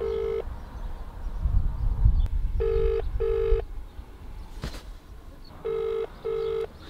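British double-ring ringback tone from a mobile phone's speaker: the called line rings and goes unanswered, heard as three 'brr-brr' pairs about three seconds apart, the first cut short at the start. A louder low rumble comes between the first two pairs, and there is a short click near the end.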